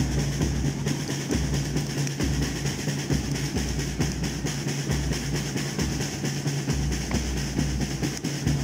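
Drums playing in a steady rhythm: a low beat about once a second over a dense, fast clatter of drumming, with a steady low hum underneath.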